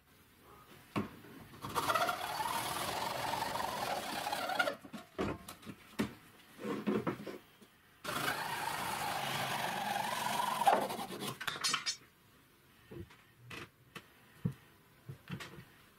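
Hacksaw cutting through a plastic pipe fitting: two spells of rasping sawing about three seconds each, with short knocks and clicks of plastic parts being handled between and after.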